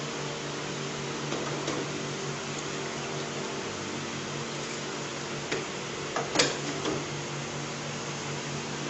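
Steady hum and hiss of a running fan, broken by a few light metal clinks and taps from the churro press and fryer basket; the loudest clinks come about six seconds in.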